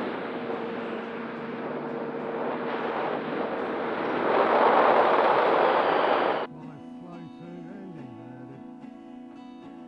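Rushing wind and the electric motor and propeller of a Flex Innovations Cessna 170 RC model plane in flight; the noise swells and then cuts off abruptly about six and a half seconds in, giving way to acoustic guitar music.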